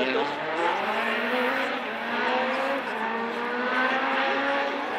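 Rally car engine accelerating hard along the stage, its note climbing and dropping back at each upshift, about twice.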